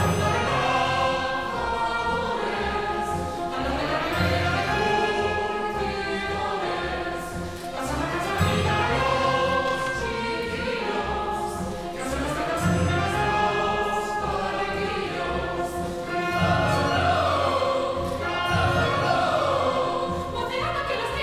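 A mixed chorus singing a zarzuela number with a pit orchestra accompanying, the sound swelling every few seconds.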